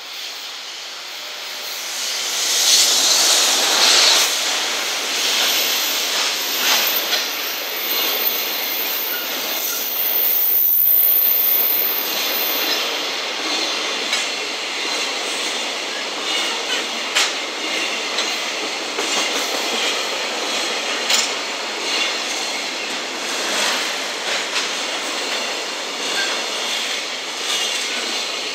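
EF210 electric locomotive passing close, loudest a few seconds in, followed by a long string of container wagons, their wheels clacking rhythmically over the rail joints. A thin high-pitched whine sounds for several seconds about a quarter of the way through.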